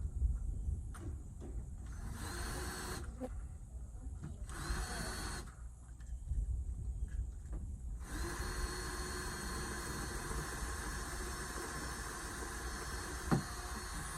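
Power drill boring the mounting holes for a camera bracket: a few short trigger bursts that each spin up with a rising whine, then a steady run through the last several seconds.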